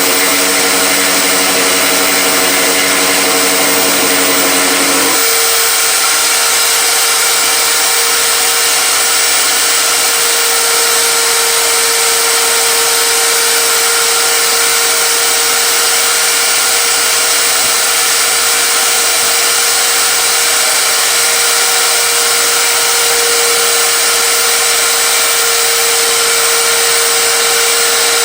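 Electric power tool running steadily and loudly with a constant whine. A lower hum beneath it drops out about five seconds in.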